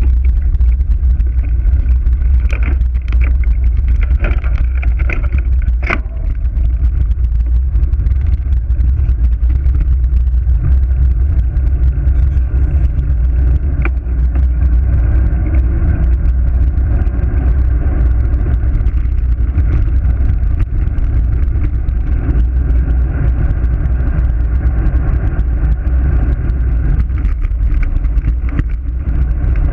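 Wind buffeting the action camera's microphone during a fast road-bike descent: a loud, steady low rumble, with a few sharp knocks in the first six seconds and one about fourteen seconds in.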